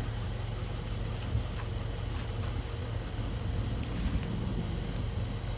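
Crickets chirping in an even rhythm, about two short chirps a second, over a continuous higher insect trill and a steady low rumble.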